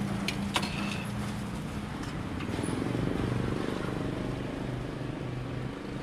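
Steady low motor hum, like an engine idling nearby, with two light metal clinks of serving tongs about half a second in.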